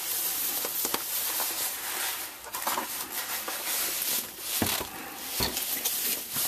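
Thin plastic bag crinkling and rustling as it is pulled off a cutting machine, with a few soft knocks.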